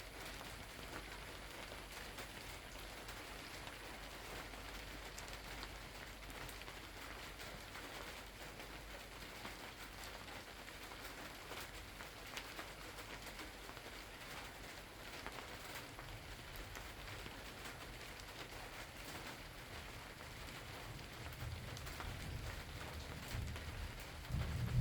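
Steady rain falling, with scattered drops ticking on a surface. Near the end a low rumble of distant thunder builds.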